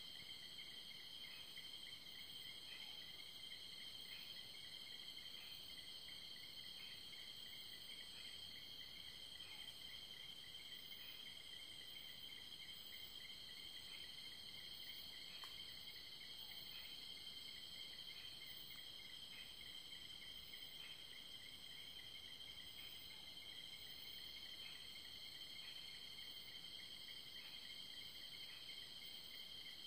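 Faint night chorus of crickets and other insects: steady high-pitched trilling, with a lower chirp pulsing at an even rhythm.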